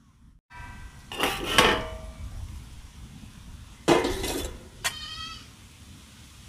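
A metal lid and kadai clanking, with a ringing tone after each hit: two loud clatters, about a second in and about four seconds in, then a short sharp clink.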